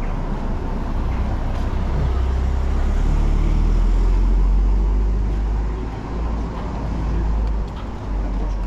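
A motor vehicle running close by in the street: a low rumble that builds to its loudest around the middle and eases off after about six seconds, over a steady haze of town street noise.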